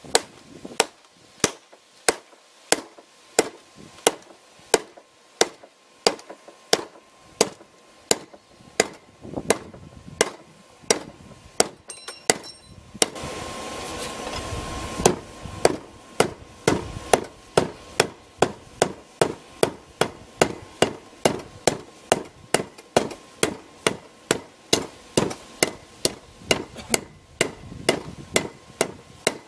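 Blacksmith's hand hammer striking hot steel on an anvil in a steady rhythm, about two blows a second, drawing a bar out into a thin hook. The hammering breaks off for a moment about twelve seconds in, then carries on.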